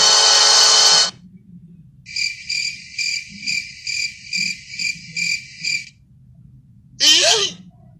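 Crickets sound effect: a run of evenly spaced, high-pitched cricket chirps, about two a second, lasting about four seconds. It is preceded by the end of a loud previous effect that cuts off about a second in, and followed near the end by a brief sweeping sound.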